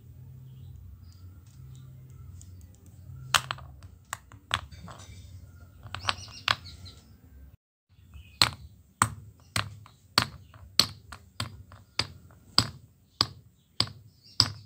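A hand-held stone striking a brass padlock resting on a flat rock: in the second half a steady run of sharp knocks, about three every two seconds, after a few scattered knocks and handling noise in the first half.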